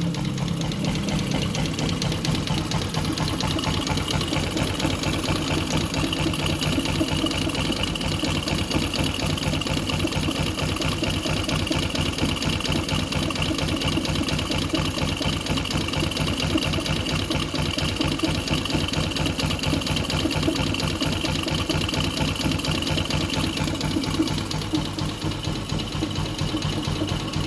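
Yamaha Jupiter MX single-cylinder four-stroke engine running steadily at idle with a rapid, even ticking clatter. This is the strange noise that the owner says is still there but hard to pin down. It gets slightly quieter near the end.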